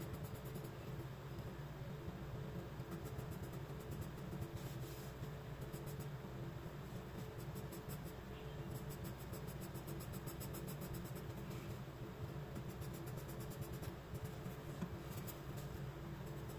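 Graphite pencil scratching on sketchbook paper in runs of quick, short shading strokes, over a steady low hum.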